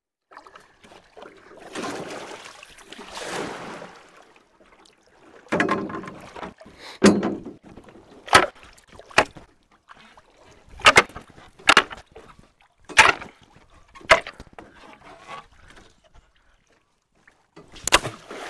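Water splashing with a string of sharp, irregular knocks and slaps, about ten in all, as a stick is jabbed into the stream along the bank to scare fish out of their holes.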